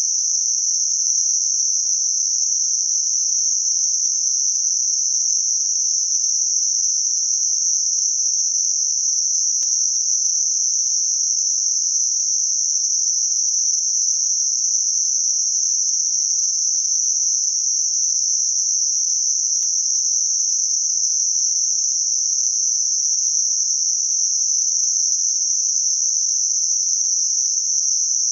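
Synthetic 6 kHz Gaussian narrowband noise: a steady, high-pitched hiss with no low end and no change in level, a bell-shaped band of noise peaking near 6 kHz and rolling off from about 4 to 8 kHz. It is made as a masking sound for high-frequency tinnitus.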